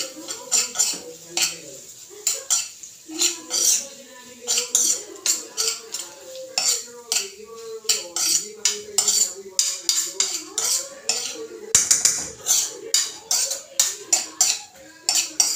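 A cooking utensil scraping and knocking against a frying pan as diced food is stirred and tossed, in irregular strokes about twice a second.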